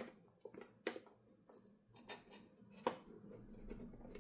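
Faint scattered clicks and scrapes of metal tweezers prying at the seam of a plastic camera housing, the sharpest click near three seconds in.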